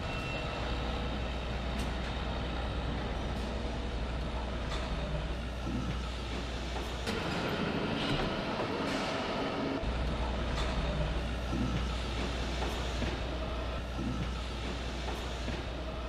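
Factory-floor machinery noise: a steady low mechanical hum that drops away for a couple of seconds midway, with a broad background rumble and scattered light clanks.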